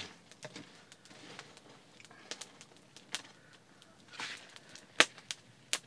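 Wooden tongs and sticks clicking and scraping against wood and embers in an open fire, scattered light knocks with two sharper clacks about five seconds in and just before the end.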